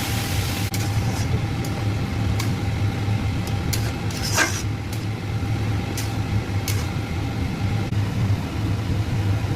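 A steady low mechanical hum with a faint constant whine above it, and scattered light clicks. A short sound sweeps downward in pitch about four and a half seconds in.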